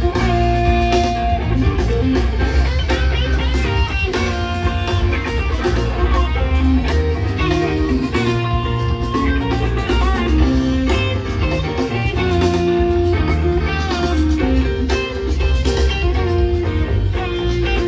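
A live rock band jamming, heard from within the crowd: electric guitar playing quick runs of notes over a steady bass line and drums.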